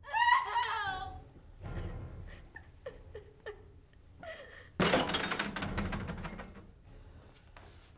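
A woman's high, wavering cry near the start, then about five seconds in a sudden loud thunk as a door is thrown open, its noise fading away over about two seconds.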